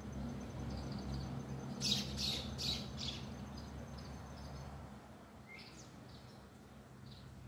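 Small songbird calling from a treetop: a quick run of four sharp, high notes about two seconds in, then a few fainter short calls.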